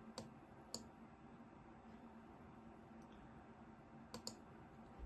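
Faint clicks of a computer mouse over near silence: two single clicks near the start, one fainter click about three seconds in, and a quick double click about four seconds in.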